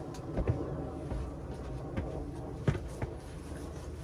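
A few soft knocks and footsteps on a sailboat's cockpit deck over a low steady rumble, the loudest knock a little before the end.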